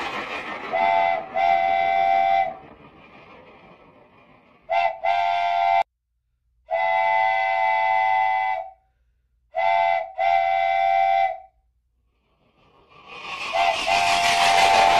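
Toy train set's horn sound effect: steady two-note horn blasts repeated several times, mostly a short toot followed by a longer one, with pauses between. A rushing train-running noise fades out early on and swells up again near the end.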